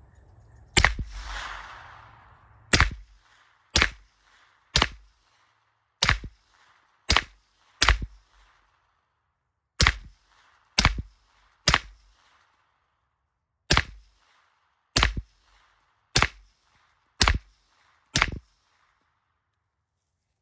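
Suppressed Smith & Wesson M&P 9mm pistol firing fifteen single shots at an uneven pace, about one every second or two, through a SilencerCo Omega 36M suppressor. The suppressor is in its short configuration, which the shooter says makes it a little louder.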